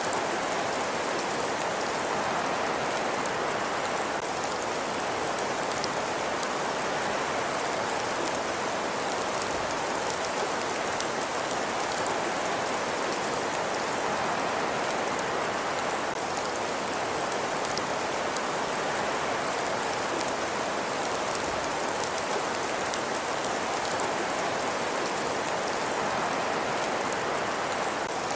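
Fireplace fire burning, a steady even hiss with many tiny crackles.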